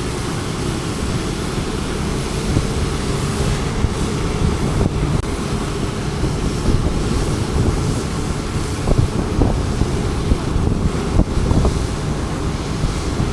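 Wind buffeting an action camera's microphone on a moving scooter, a steady low rumble with road and traffic noise underneath and a few short gusts or knocks in the second half.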